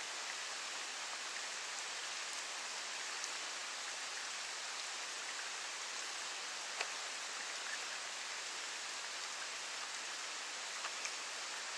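Light rain falling on the water: a steady, even hiss with a few faint ticks, the sharpest about seven seconds in.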